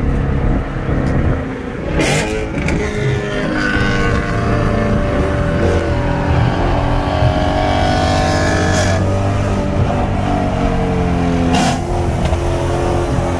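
BMW E93 M3's S65 naturally aspirated V8 running through a Dinan exhaust, its note rising for a few seconds midway as the car accelerates.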